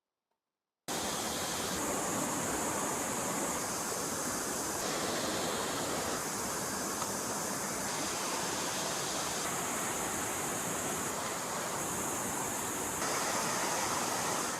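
Steady rush of flowing stream water, cutting in after a moment of silence about a second in.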